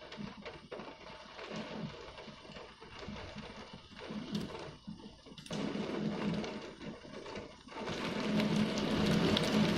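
Heavy rain driven by wind against a window, heard from inside the room. The noise rises and falls unevenly and grows louder about eight seconds in.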